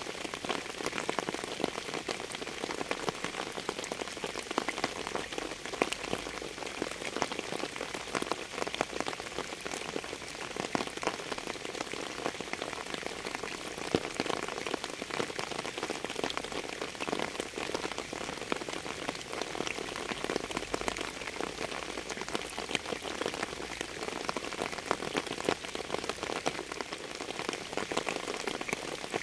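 Steady rain falling, a continuous hiss made of many separate drops striking a surface.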